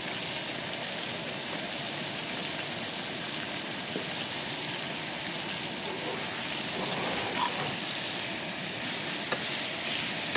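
Cubed steak frying in oil in a cast-iron skillet, a steady sizzle, with the pieces stirred and turned by a utensil.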